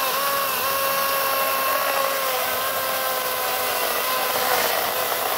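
Greenworks 40-volt GMax brushless cordless chainsaw cutting through a log: a steady high electric motor whine over the rasp of the chain chewing wood.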